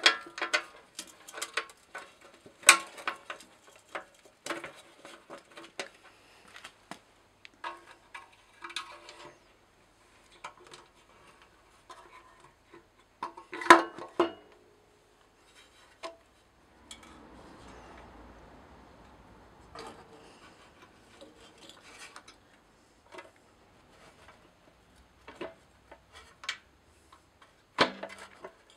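Metal hand tools clicking and clinking against the carburetor and fuel-tank fittings of a Briggs & Stratton 5 HP engine during carburetor work. The sharp metallic clicks come irregularly, the loudest about 14 seconds in, followed by a few seconds of soft rubbing noise and then scattered clicks.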